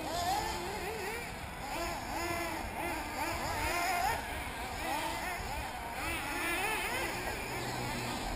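Several 1/8-scale nitro RC buggy engines racing together, a high, overlapping whine whose pitches rise and fall constantly as the cars throttle up and brake for corners.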